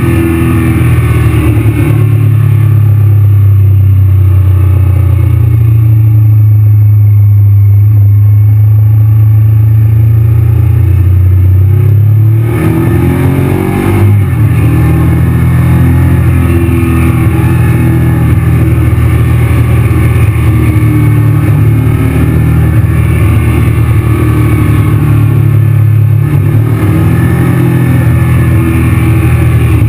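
Honda Varadero motorcycle's V-twin engine heard from on board, running steadily under load at constant revs. About twelve seconds in, the engine note dips and shifts pitch briefly, then settles back to steady running.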